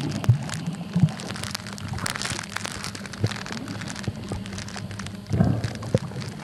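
Underwater sound picked up through a camera's soft waterproof pouch over a coral reef: a dense, rain-like crackle of small clicks over a steady low hum, with a rush of water about two seconds in and a low surge of water movement near the end.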